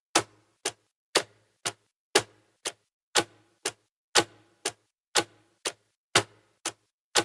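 Clock ticking as a countdown sound effect. It goes tick-tock twice a second: a stronger tick on each second with a short ring, and a softer, shorter tick halfway between.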